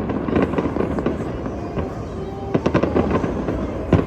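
Fireworks bursting in a rapid run of bangs and crackles, thickening into a dense cluster about two and a half seconds in and again near the end.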